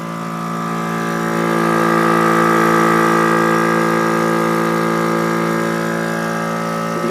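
HornBlasters train horn kit on a pickup truck blowing one long steady blast, a chord of several tones sounding together that swells about a second in and then holds.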